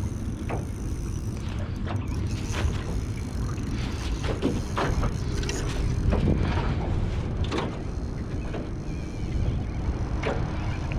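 Spinning reel being cranked to wind in a hooked trevally on light line, giving a mechanical whirring with scattered clicks over steady wind and water noise.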